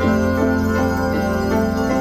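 Pit orchestra playing a stage musical's score: a melody of short pitched notes changing every quarter to half second over a steady low drone.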